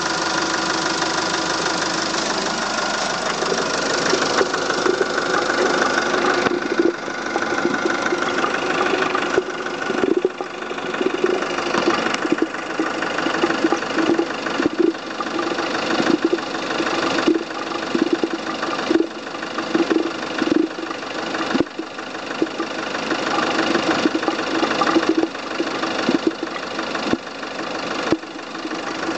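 Volvo S40 idling, with an irregular pulsing noise coming from the coolant expansion tank. The uploader links the noise to a suspected head gasket or cylinder head fault.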